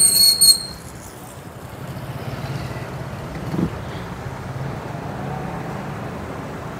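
Street traffic noise: a steady low rumble of passing vehicles. A brief high-pitched squeal sounds in the first half second.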